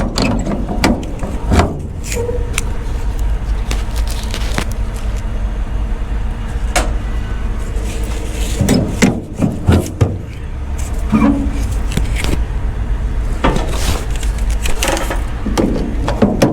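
Semi-truck diesel engine idling with a steady low hum, with scattered knocks and clicks from handling equipment over it.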